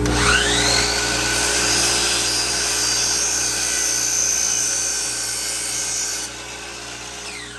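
DeWalt DWS779 miter saw's motor spinning up with a quickly rising whine, running at a steady high whine for about six seconds, then winding down with a falling whine near the end.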